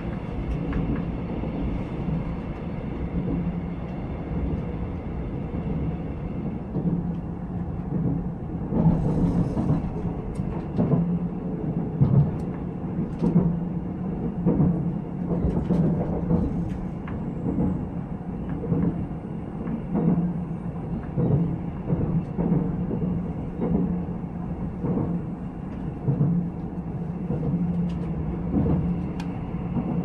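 Inside the carriage of a Nuriro electric passenger train in motion: a steady running rumble with a low hum. From about eight seconds in, repeated sharp knocks and clatters come roughly once a second, the wheels over the track.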